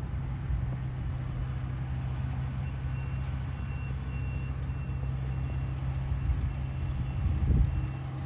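A steady low mechanical hum, with faint high chirps repeating at an even pace over it.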